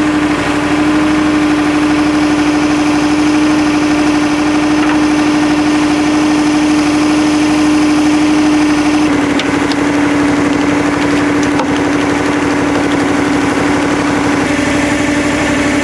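Small boat's motor running steadily with a strong, even hum, its pitch stepping slightly lower about nine seconds in.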